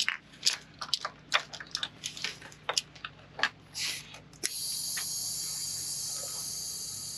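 Short clicks and rattles of an air inflator being fitted to the fill valve of a PVC air cannon. Then, about four and a half seconds in, a steady hiss starts suddenly: compressed air from the compressor hose filling the cannon's pressure chamber toward 50 PSI.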